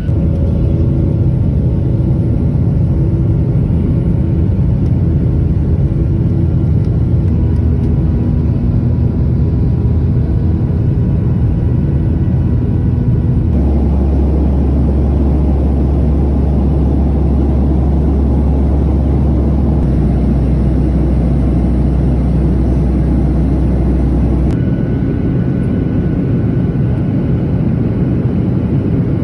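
Jet airliner engine noise heard from inside the passenger cabin: a loud, steady rumble and whir. The sound changes abruptly twice, about halfway through and again near the end, with a deep hum in the middle stretch.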